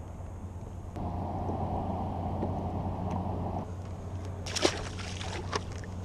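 A tautog released over the side of a kayak hits the water with a short splash about two-thirds of the way in, followed by a lighter knock a second later. A steady low rumble underlies it, with a stretch of rushing noise in the first half.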